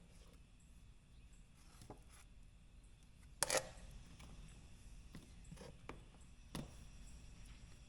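Faint handling sounds of work on a door jamb repair: a few light clicks and knocks over a low hum, the loudest a short clatter about three and a half seconds in and a smaller knock near the end.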